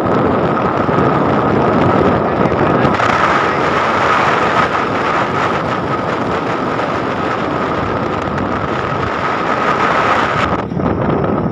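Steady rush of wind on the microphone of a moving motorcycle, with the engine running under it. The high hiss thins out suddenly near the end.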